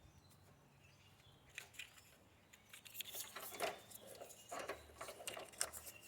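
Faint, scattered clicks and rattles of wiring-harness clamps being handled and fitted to an engine wiring harness, starting about a second and a half in and coming more often near the end.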